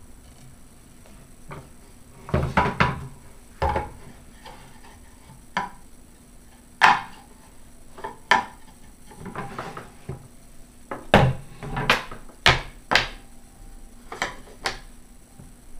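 Wooden puzzle pieces and a wooden puzzle board knocking and clattering against a wooden table as a toddler handles them: a dozen or so sharp, irregular knocks, some in quick clusters.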